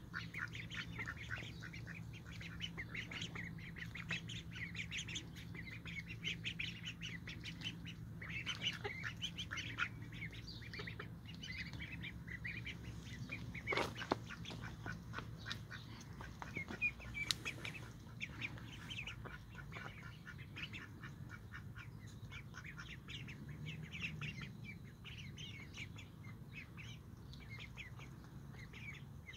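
A flock of Indian Runner ducklings peeping constantly, many short high calls overlapping. A single sharp knock about fourteen seconds in.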